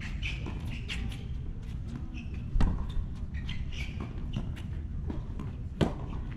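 Tennis rally: a racket striking the ball twice with sharp pops, about two and a half seconds in and again near the end, between fainter ball bounces and footsteps on the hard court.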